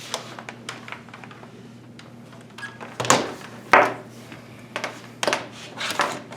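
Irregular clicks and knocks from objects being handled, with two louder knocks around the middle.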